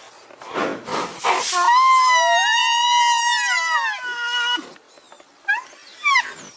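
Comedy rhinoceros sound effect: a breathy snort, then one long high-pitched wailing call that bends up and down, then a few short squeaky calls near the end.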